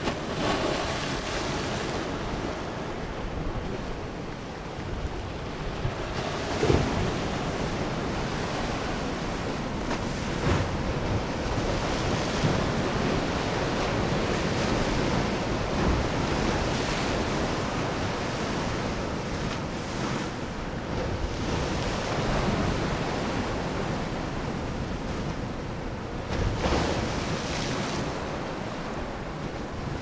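Sea waves breaking on shore rocks: a steady surf wash that swells and ebbs, with louder crashes every few seconds, the strongest about seven seconds in and another near the end. Wind buffets the microphone.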